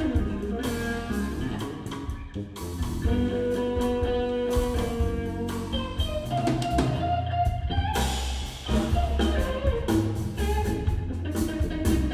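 Live instrumental trio: electric guitar playing a lead line of held notes and gliding phrases over electric bass and a drum kit.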